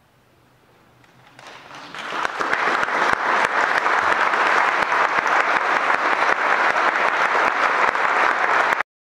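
Audience applauding. After about a second of near silence, the clapping starts and builds over a second or so. It then holds steady until it cuts off abruptly near the end.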